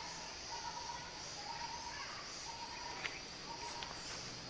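Insects droning steadily in a high pitch, with a fainter lower tone that breaks off and starts again.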